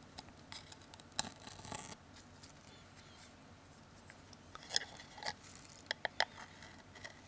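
A small hand tool scraping leftover adhesive off the edges of a Samsung Galaxy S2's front housing. It makes faint, scattered light clicks and short scrapes, which bunch up about a second in and again near the end.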